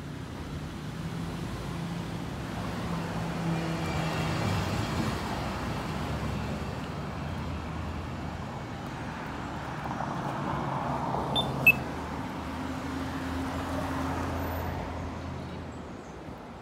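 Road traffic at a town intersection: cars passing, their engine hum and tyre noise swelling and fading twice. One short, sharp click about two-thirds of the way through.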